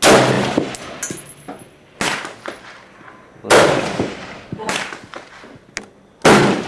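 AR-15 rifle shots, 5.56 mm: three loud cracks, at the start, about halfway and near the end, each trailing off in a long echo, with two quieter shots in between.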